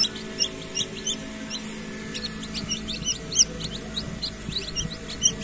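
Newly hatched chicken chicks peeping, many short high-pitched peeps several times a second, over a steady low hum.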